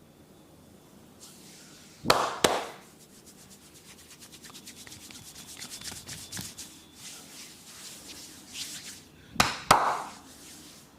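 Hand massage on the head: two sharp smacks, then several seconds of fast, fine rubbing and scratching ticks of hands working through hair and skin, then two more sharp smacks near the end.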